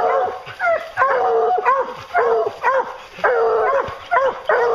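Several English hounds baying together, loud long bawls and barks overlapping at about three a second.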